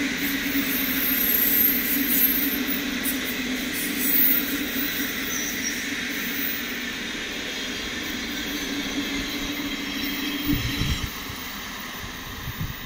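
PKP Intercity passenger coaches rolling along the rails, a steady rumble of wheels on track that slowly fades. A few low thumps come near the end.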